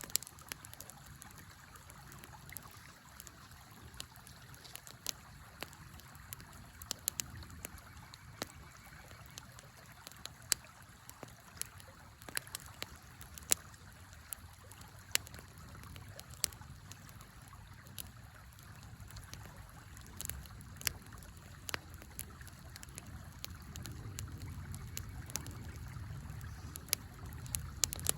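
Wood fire crackling with sharp, irregular pops over the steady rush of a river. A low rumble swells in the last few seconds.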